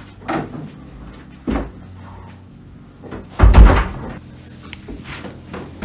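A handful of separate knocks and bumps from things being handled and set down, with one heavier thud about three and a half seconds in.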